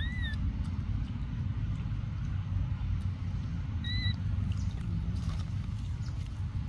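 Two short, high, squeaky animal calls: a rising-and-falling one at the start and a flatter one about four seconds in. Both sound over a steady low rumble.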